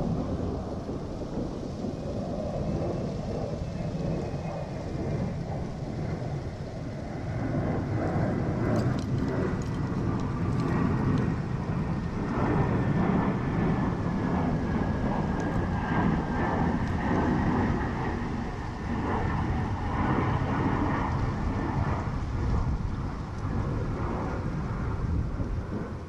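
Wind buffeting the microphone: an uneven low rumble that swells and eases, with a faint thin whine slowly falling in pitch through most of it and a few light clicks about a third of the way in.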